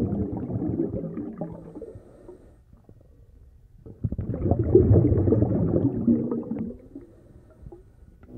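Underwater bubbling and gurgling in two swells, the second starting about four seconds in, each fading away.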